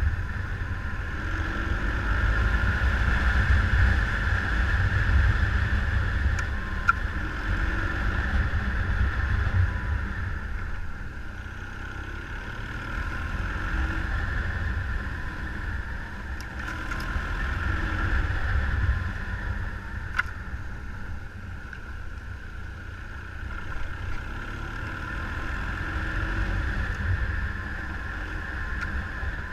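A motorcycle being ridden, its engine running under heavy wind rush on the microphone that swells and fades every few seconds, with a few faint clicks.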